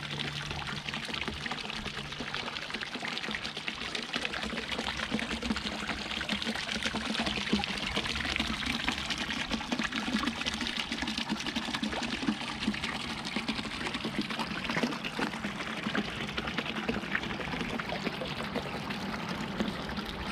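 Boulder fountain: water welling up around the base of a large upright stone into a round basin and spilling down a rocky channel, a steady splashing trickle.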